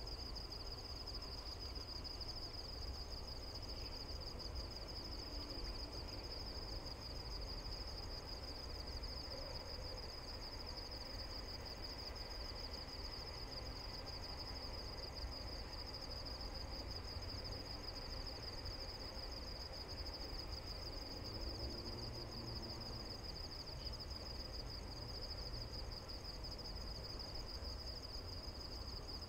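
Insects trilling at one steady high pitch, over a low, even rumble.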